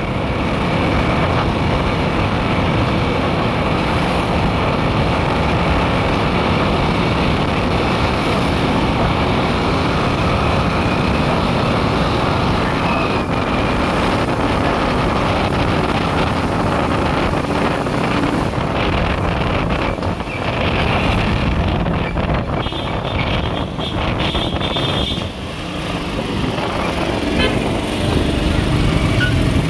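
Steady engine and road noise from a vehicle travelling along a town street, dipping briefly twice in the second half.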